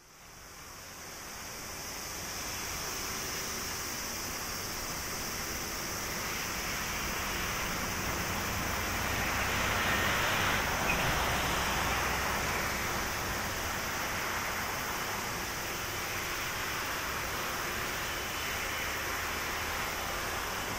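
Airbus A330-343's Rolls-Royce Trent 700 jet engines running at low taxi power as the airliner rolls slowly: a steady jet rush and rumble. It fades in over the first couple of seconds and swells a little about halfway through.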